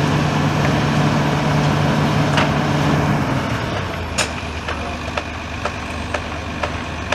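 Demolition excavator's diesel engine running steadily, then dropping to a lower, quieter idle about three and a half seconds in as the machine stops working. Sharp ticks, roughly two a second, follow the drop, the loudest just after it.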